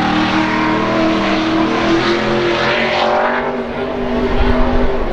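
Dirt-track race truck engine running at a steady pitch, stepping down in pitch about three and a half seconds in.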